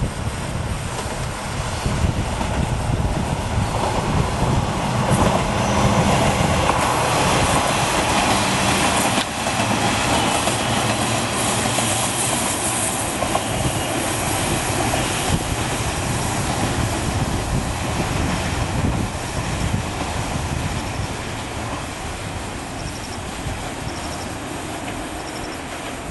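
Two-car KiHa 40 series diesel railcar passing close by: its diesel engine running and wheels clattering over the rail joints, loudest around the middle and then fading as it draws away. A brief high wheel squeal on the curve comes just after halfway.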